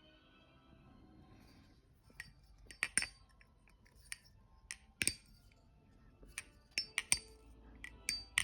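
Balisong (butterfly knife) handles clicking and clinking metal on metal as the knife is handled, a scatter of sharp, irregular clicks starting about two seconds in.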